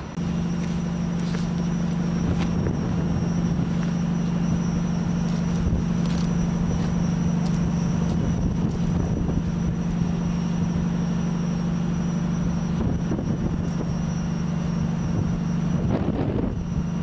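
Stainless-steel TEE passenger coaches rolling past on the track, with a steady low hum and a few faint clicks from the wheels.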